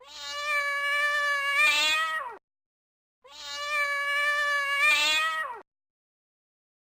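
Domestic cat giving a long, drawn-out meow twice, the same call both times, each holding a steady pitch for about two seconds before falling away at the end.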